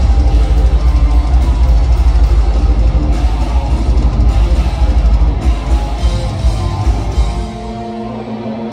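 Live heavy metal band playing loud: distorted electric guitars over fast drums. About seven seconds in, the drums drop away and a held guitar chord rings on.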